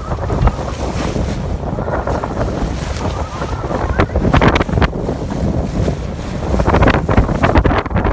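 Strong wind buffeting the microphone, with loud gusty rumbles and sharp bursts of buffeting that swell near the end.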